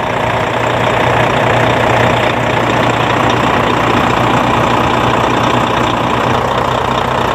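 Volvo FMX 400 truck's 13-litre six-cylinder diesel idling steadily, heard from underneath the truck close to the oil pan.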